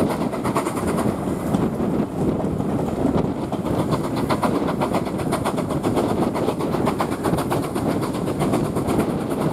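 Steam-hauled train of coaches behind LMS Ivatt tank engine no. 41312 running at speed, heard from an open carriage window: a steady rush of wheels on rail and moving air, with a quick, even beat running through it.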